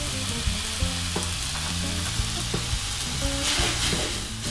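Glass noodles, wood ear mushrooms and chicken sizzling in a metal wok as a spatula stirs them, with small scrapes and taps of the spatula on the pan. The sizzle flares louder about three and a half seconds in.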